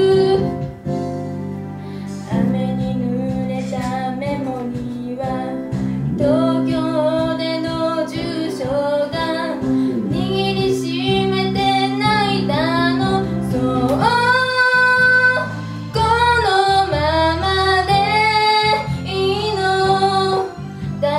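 A young woman singing a Japanese pop song into a microphone over an instrumental accompaniment, with vibrato on held notes and one long high note about two-thirds of the way through.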